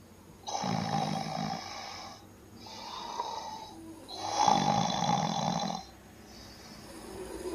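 A drunk woman snoring heavily in her sleep: two loud, rasping snores a few seconds apart, each followed by a softer breath.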